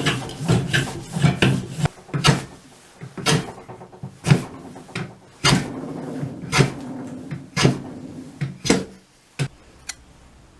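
A hand plane being pushed along a piece of wood to shape a handle, in repeated strokes of about one a second that stop near the end.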